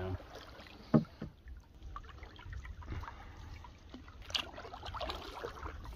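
Canoe being paddled through still water: a wooden paddle dipping and pulling with light splashes and drips, and a sharp knock about a second in.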